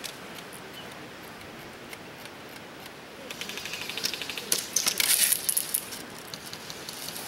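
Airsoft guns firing in rapid clicking bursts, starting about three seconds in and growing louder and sharper for a couple of seconds before easing off.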